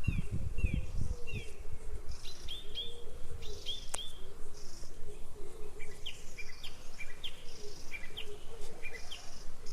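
Small birds chirping in short, quick calls repeated several times a second, over a low rumble. A few low thuds come in the first second, and there is a single sharp click about four seconds in.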